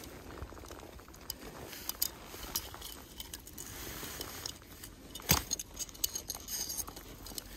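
Scattered small clicks and light metallic clinks from handling a landed pike and the lure's hooks, with one sharper click about five seconds in.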